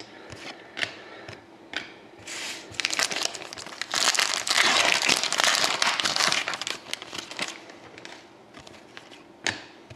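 Crinkly trading-card packaging being handled: a few light clicks, then about four seconds of dense crinkling and crackling that is loudest in the middle, followed by another click near the end.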